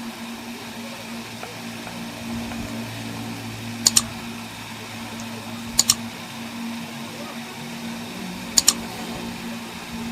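Steady hum of a car with its AC running, broken by sharp double clicks about four, six and eight and a half seconds in.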